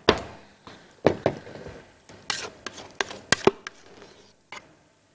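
Knocks and clinks of a large stainless steel mixing bowl and a spatula being handled on a countertop: a handful of sharp knocks about a second apart, the loudest at the very start.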